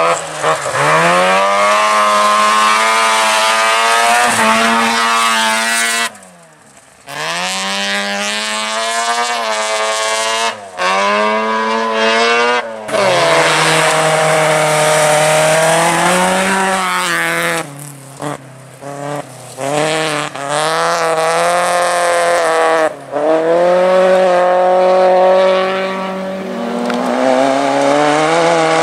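Rally car engine revving hard on a gravel stage, its pitch climbing through each gear and dropping at every shift or lift. The sound falls nearly away about six seconds in and again for a couple of seconds around eighteen seconds in.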